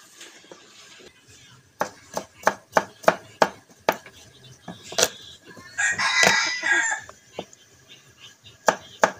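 Cleaver chopping garlic and chillies on a wooden board, sharp knocks about three a second, pausing midway. In the pause a rooster crows once for about a second.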